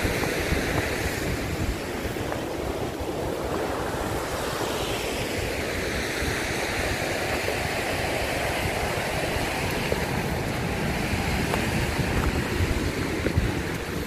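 Water of the River Tees rushing steadily over a waterfall, with wind buffeting the microphone.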